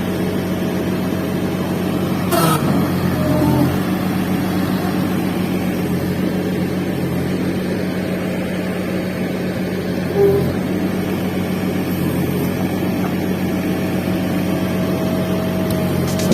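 Backhoe loader's diesel engine running steadily, with a brief knock about two seconds in and another near the middle.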